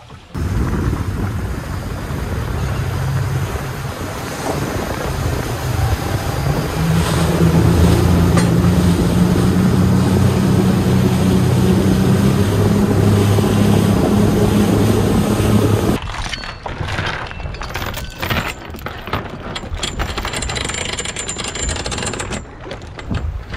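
Twin 225 hp outboard motors running under way at speed, with wind and water rushing past the hull; the engine note is steady, rising slightly several seconds in. About 16 seconds in it cuts to lighter wind and a string of knocks and clatters at the bow, where the anchor chain and line are being handled.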